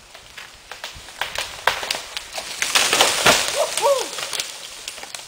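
A felled tree going over: a run of wood cracking and branches snapping that builds over about three seconds, ending in a heavy thud as the trunk hits the ground.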